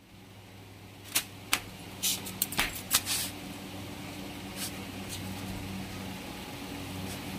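Shoes being handled and set down on the shelves of a fabric-covered shoe rack: a few scattered clacks and rustles, most of them between about one and three and a half seconds in, over a steady low hum.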